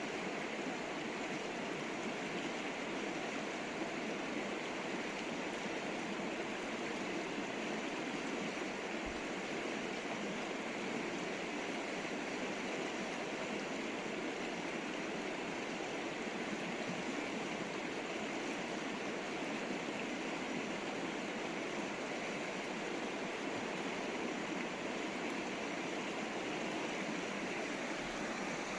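River water flowing and rushing in a steady, even stream.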